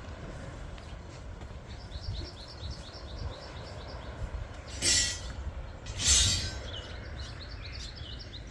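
Outdoor ambience: a small bird gives quick runs of chirps, once early and again near the end, over a steady low rumble. In the middle come two short, loud hissing bursts about a second apart.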